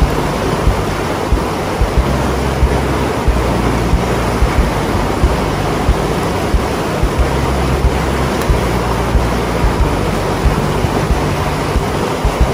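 Fast river rapids rushing steadily, with wind buffeting the microphone in short low thumps.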